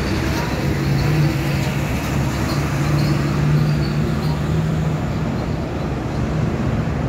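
Heavy cargo truck driving past, its engine running with a steady low hum that is loudest about halfway through and then fades as the truck moves away.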